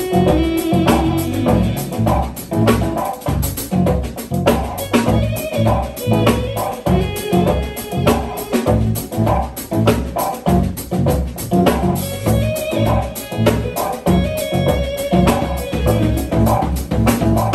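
Live jazz trio playing: keyboards, electric bass guitar and drum kit together, with a steady drum beat under the bass line.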